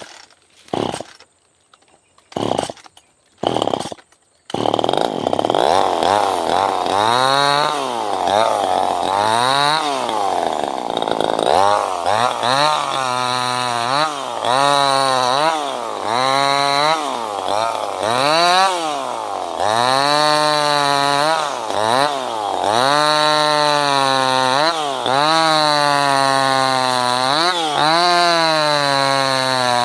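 Small 25cc two-stroke top-handle chainsaw (Wudee) being started: a few brief bursts, then the engine catches about four seconds in and runs, revved up and down over and over.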